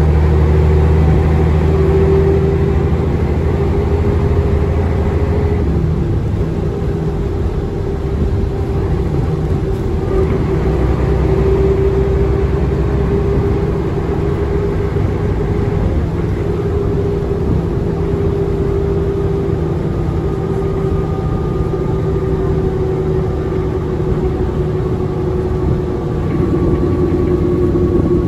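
Liaz ML diesel engine of a 1984 Karosa LC736.00 bus running steadily on the road, heard from inside the passenger cabin with road and tyre noise. The deep low rumble eases off about six seconds in.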